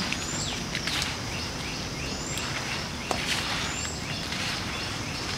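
Steady outdoor background noise, with a bird repeating a short high chirp about every second and a half. Hands kneading a heap of wet cow dung give a couple of faint soft slaps.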